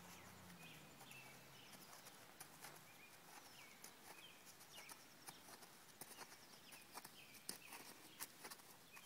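Faint, scattered hoofbeats of a horse walking on soft dirt footing, with a few faint bird chirps.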